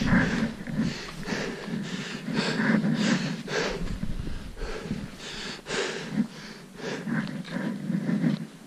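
Footsteps crunching through snow, about two steps a second, with the walker's heavy breathing.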